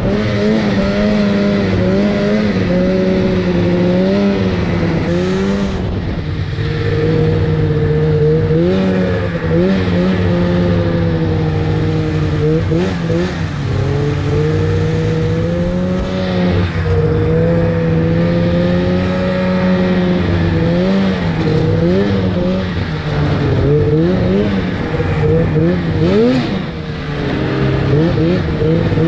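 Snowmobile engine running under way, heard from the rider's seat, its pitch rising and falling with the throttle as it cruises along the trail.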